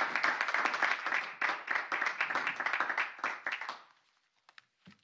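Applause from a small group of people, dense clapping that dies away about four seconds in, followed by a few faint taps.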